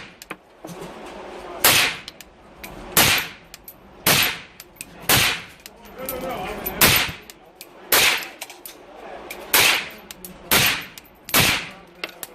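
Suppressed 7.62x39 AR-15 with a 10.5-inch barrel firing about nine single shots at a steady, unhurried pace, each a sharp report with a short tail.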